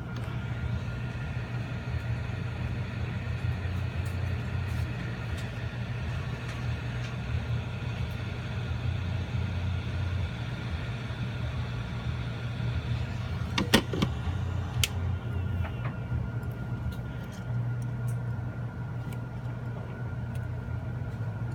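A heat gun blowing with a steady whir for about thirteen seconds, warming the adhesive under the home button flex cable, then switched off, followed by a few sharp clicks. A low steady hum continues underneath.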